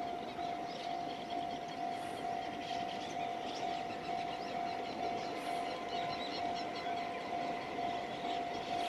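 Railway level-crossing warning alarm ringing steadily in a fast, evenly repeating single tone.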